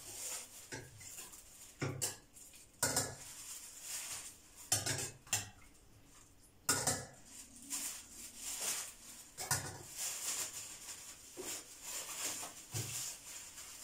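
A metal spoon clinks and scrapes at irregular intervals against a stainless-steel pot as boiled carrot slices are scooped out into a plastic bag, with the plastic bag crinkling in between.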